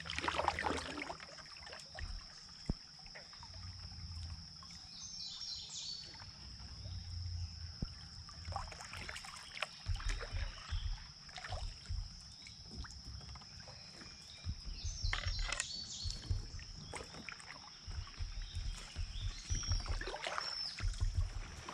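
Quiet kayak-on-the-river ambience: scattered light knocks and water sounds around the hull and paddle, with intermittent low rumbles. A steady high thin whine runs under it, and a few short bird chirps come in three brief clusters.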